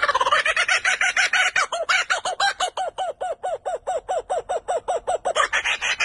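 Laughing kookaburra calling its laugh: a rapid run of short chuckling notes, about five a second, turning louder and harsher near the end.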